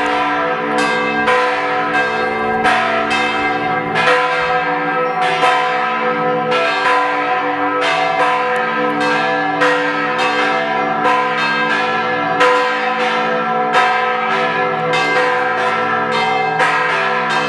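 Matera Cathedral's bell ringing for noon. It is struck a little more often than once a second, and each stroke rings on under the next.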